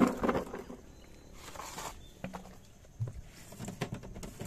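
Handling noise: a louder clatter right at the start, a short rustle about a second and a half in, then scattered light knocks and taps.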